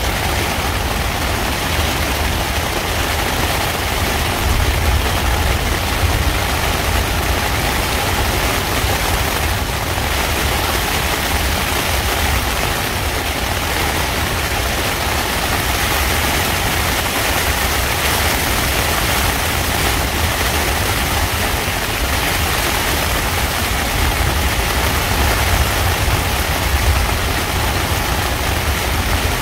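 Thunderstorm rain falling on a tent, a steady hiss with a deep rumble underneath.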